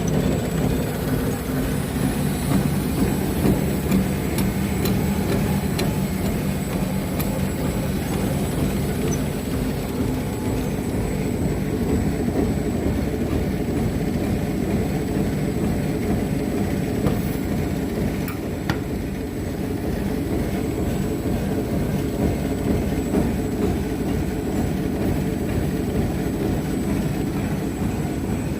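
Kuper FLI 1000 veneer splicer running: a steady mechanical hum with a few light clicks.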